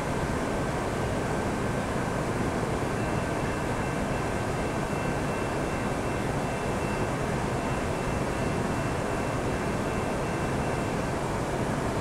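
Approaching diesel-electric freight locomotives, led by a CSX GE ET44AH Tier 4 GEVO, running with a steady low rumble and hiss.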